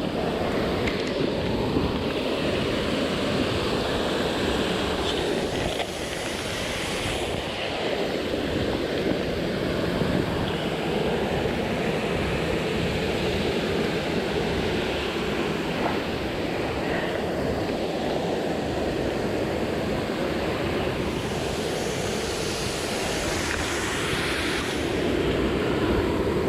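Rushing water of a mountain headwater stream, a steady noise that holds an even level throughout.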